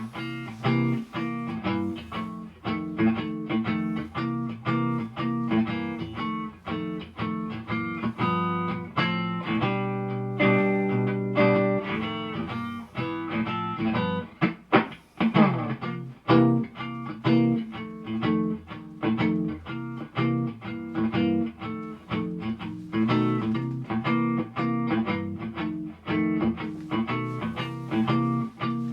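Electric guitar played through an amplifier and speaker cabinet, a steady run of picked notes and chords. About halfway through there is a quick sliding swoop in pitch.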